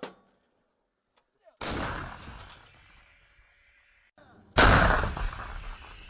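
Two heavy battlefield blasts about three seconds apart, each dying away in a long rolling echo; the second is louder.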